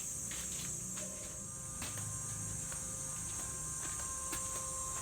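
Steady high-pitched chirring of crickets or similar insects, with a few light clicks or knocks scattered through it.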